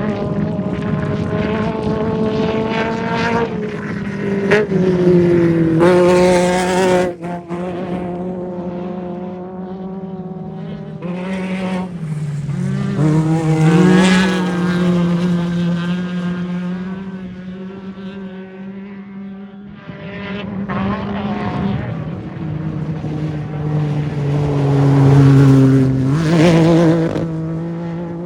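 Off-road race vehicle engines running and revving, with a steady engine drone. Three loud swells, about a fifth, half and nine-tenths of the way through, as vehicles rev hard or pass close.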